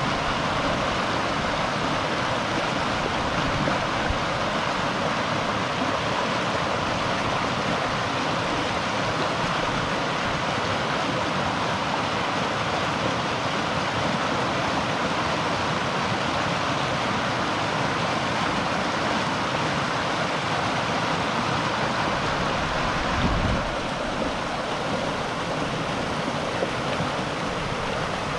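River water rushing steadily over rocks, an even, continuous flow. Near the end there is a brief low thump, and the rush is slightly quieter after it.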